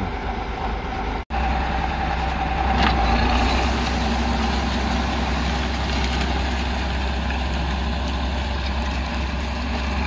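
Soviet T-150 tractor's six-cylinder diesel engine running steadily under load as it pulls a disc harrow set deep through sunflower stubble, with a short break in the sound a little over a second in.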